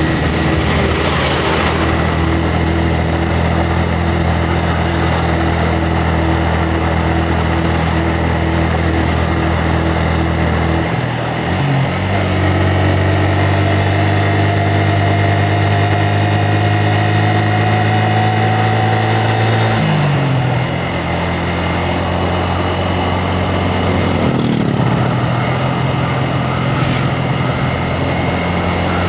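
Yamaha Vixion's 150 cc single-cylinder engine running steadily as the motorcycle rides along, its pitch dropping suddenly about eleven and twenty seconds in as it shifts up a gear, and changing again near twenty-five seconds.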